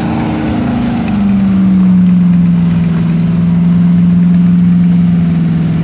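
Stuck truck's engine revved hard and held at high revs while the driver tries to drive it out of the mud. Its steady tone drops slightly and gets louder about a second in, then holds.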